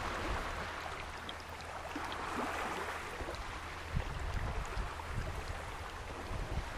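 Baltic surf washing over a stone beach, the water noise swelling and easing every few seconds, with scattered faint clicks of pebbles and a low rumble underneath.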